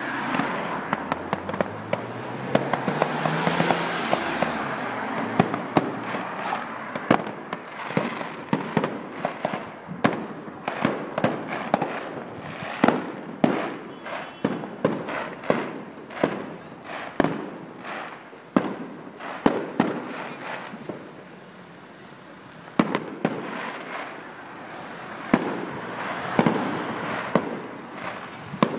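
Fireworks going off in quick succession: many sharp bangs and cracks, often several a second, with a hiss in the first few seconds. The bangs thin out for a few seconds past the middle and pick up again near the end.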